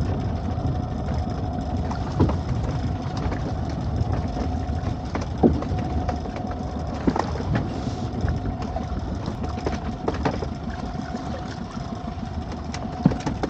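Small fishing boat's engine idling steadily, with a few light knocks scattered through.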